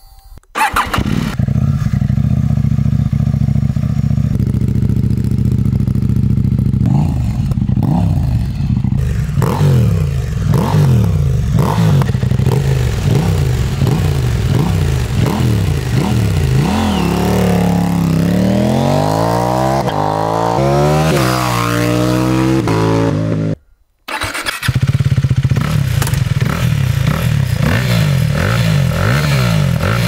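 KTM 890 Duke R parallel-twin with an Austin Racing RS22 twin exhaust idling, then revved in a string of short throttle blips and a few longer sweeps up and down. After a brief cut about 24 seconds in, a KTM RC 390 single-cylinder with an Austin Racing exhaust idles and revs.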